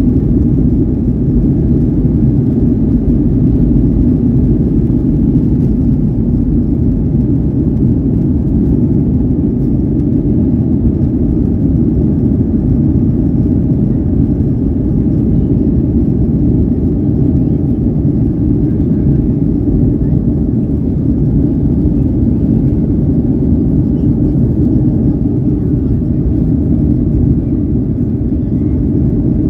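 Boeing 737-900ER cabin at takeoff thrust, heard from a window seat by the wing: its CFM56-7B engines give a loud, steady, deep rumble through the end of the takeoff roll, liftoff and initial climb.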